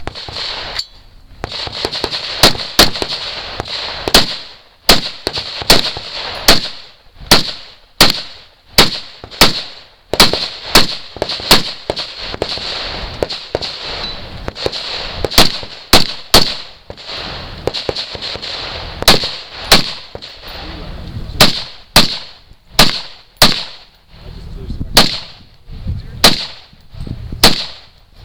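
A long string of gunshots from a competitor firing through a multigun stage: single shots and quick pairs about half a second to a second apart, with brief pauses between strings.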